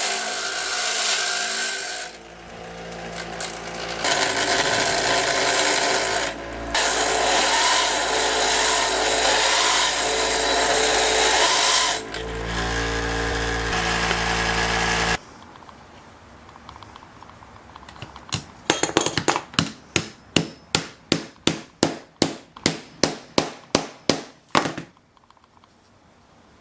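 A power grinder grinding down a steel T-nut so it will fit the wooden rail without splitting it. It runs in a few long passes with brief breaks and stops about 15 seconds in. Near the end a quick series of sharp strokes follows, about three a second for some six seconds.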